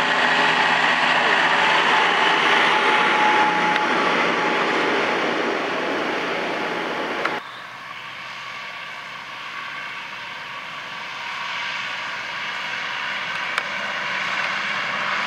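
Farm tractor engine running as the tractor and its trailer drive past close by. About seven seconds in the sound cuts abruptly to a second tractor and trailer heard further off, growing gradually louder as it approaches.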